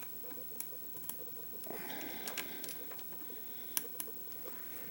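Scattered light clicks and clinks of hand tools and hardware being worked on a pit bike's front fork pinch bolts, with a soft rustle about two seconds in.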